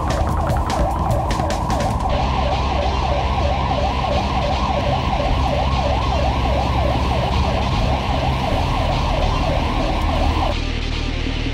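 Ambulance siren on a fast yelp, the tone sweeping up and down about four times a second, heard from inside the cab over the vehicle's engine and road rumble. The siren cuts off about ten and a half seconds in.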